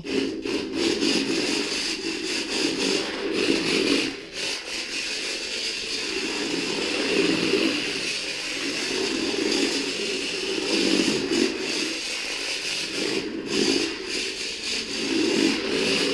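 Tiny electric motor and gears of a Drift Package Nano RC drift car whirring as it drives, on its high speed setting. The sound surges and eases every second or two with the throttle.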